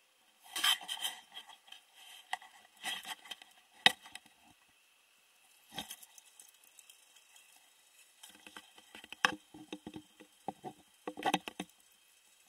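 Footsteps crunching through snow and brush, with twigs and branches crackling underfoot in irregular bursts.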